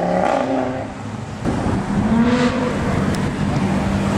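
Sports car engines driving past. One engine note glides and fades in the first second. About a second and a half in, another car's engine comes in, rises in pitch and settles to a steady note near the end.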